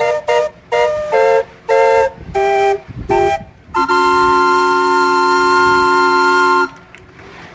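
The SS Admiral's calliope playing the end of a tune: a run of about seven short, detached chords, then one long held chord of about three seconds that cuts off abruptly near the end.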